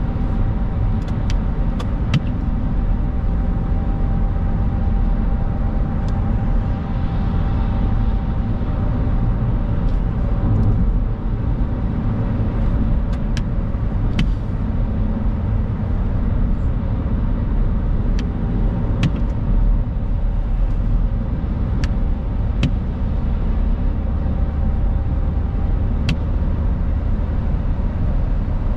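Steady road noise heard inside a car's cabin at dual-carriageway speed on a wet road: a continuous low rumble of tyres and engine with a hiss above it. Scattered sharp ticks come at irregular moments.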